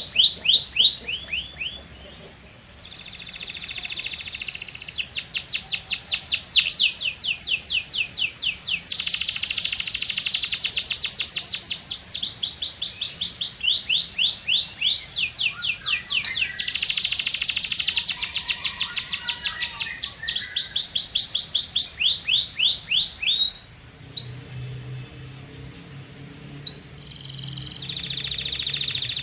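A canary singing in fast trills of rapidly repeated high notes. Each trill runs a second or two before switching to another note type. There is a short lull about two seconds in and a quieter stretch near the end.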